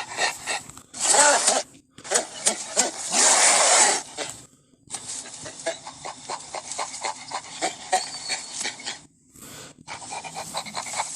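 Gorilla creature sound effects for a giant albino gorilla: a few loud, breathy vocal bursts in the first four seconds, then a run of rapid short panting pulses, with another burst near the end.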